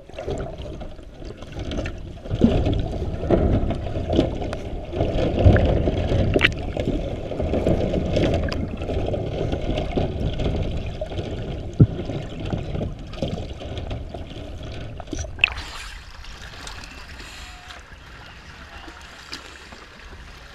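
Muffled low water rumble heard through an action camera's underwater housing, with a few sharp knocks. About fifteen seconds in, the camera breaks the surface and the sound turns to lighter water lapping and splashing around a shark cage.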